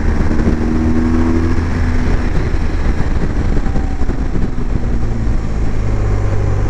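BMW R1200GS flat-twin engine pulling under throttle on the road, over a rush of wind and road noise. Its note rises during the first couple of seconds, fades into the rush around the middle, then comes back lower and steady and starts climbing again near the end, as when shifting up a gear.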